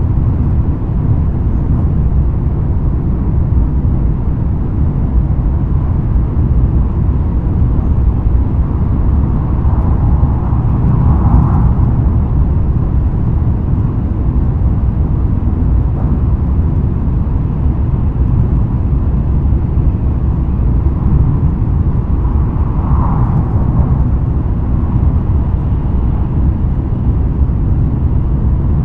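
Interior running noise of a JR West N700 series 5000 (N700A) Shinkansen car travelling at a steady speed: a loud, even, low rumble from the wheels and rails. Two brief swells in the higher range come about eleven seconds in and again about twenty-three seconds in.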